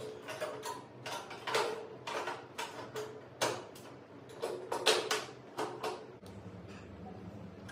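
Sliding-door cabinet hardware being handled and fitted: an irregular run of clicks, knocks and short metallic clinks. A steady low hum starts near the end.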